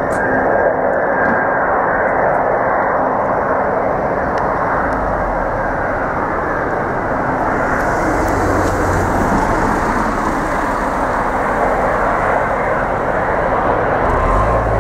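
An Airbus A350-1000 on final approach with its gear down, its Rolls-Royce Trent XWB-97 turbofans making a loud, steady jet rush that swells in the first second. A deeper rumble joins about a third of the way in as the aircraft nears.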